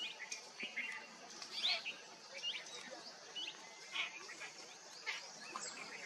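Wild birds chirping: short, sharp calls coming irregularly about twice a second, some sweeping down in pitch, over a faint steady hiss of the surroundings.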